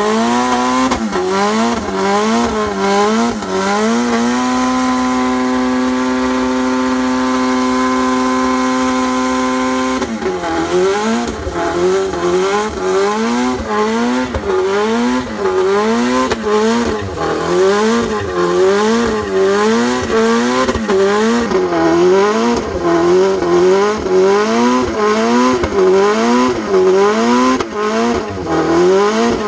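A car engine revving hard during a burnout, the revs rising and falling about once a second, with the tyres spinning and squealing. A few seconds in the revs are held steady for about six seconds, then the rise and fall resumes.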